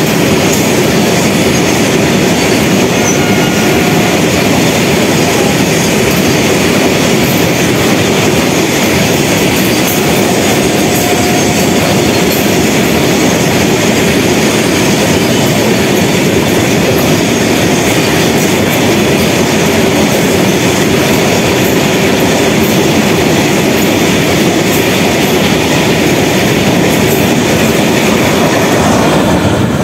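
Indian Railways BOXNHL covered freight wagons rolling past at speed: a loud, steady rumble and clatter of steel wheels on the rails, with the last wagon and brake van going by near the end.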